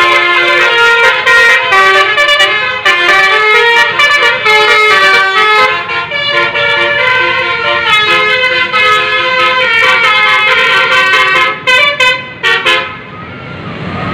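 A bus's basuri telolet horn playing a quick melody of stepping horn notes. It cuts off a little before the end.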